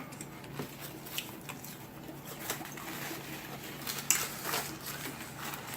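Faint clicks and rustles over a low steady hum in a small room, a little louder about four seconds in.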